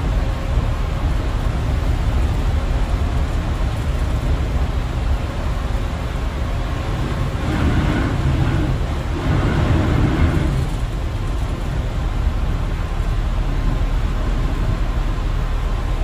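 Bus interior while driving on a wet road in rain: steady low engine and tyre rumble with a hiss of spray, and two brief louder rushes about halfway through.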